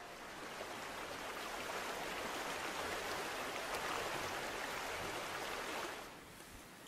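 Steady rush of flowing water that fades out near the end.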